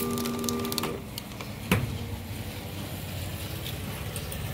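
Small vertical sachet-packing machine running. A held tone and rapid clicking stop about a second in, then one sharp clack, then a low steady machine hum with faint ticks.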